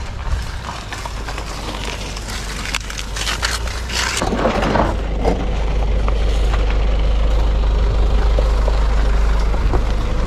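Yamaha motor scooter's engine running while the scooter moves slowly over a dirt road. A steady low hum grows louder about four seconds in and holds.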